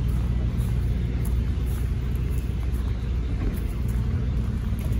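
Steady low mechanical rumble with an even, unchanging hum, like a running engine or large machine.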